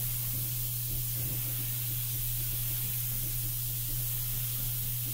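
Neiko 31207A HVLP mini gravity-feed spray gun hissing steadily as it sprays clear coat, over a steady low hum.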